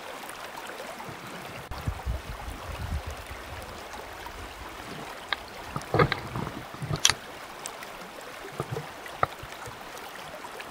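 Steady rush of a riffled stream's current. A low rumble comes about two seconds in, and a few sharp clicks and knocks come a little past the middle as the fly rod and line are handled.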